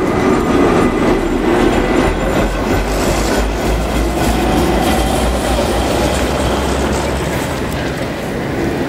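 An articulated electric tram running past close by: a steady rumble of steel wheels on the rails, with a few clicks as the wheels cross rail joints about a third of the way in.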